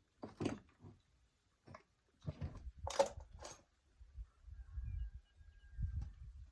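A handful of short clicks and knocks of things being handled, the loudest about three seconds in, followed by low rumbling.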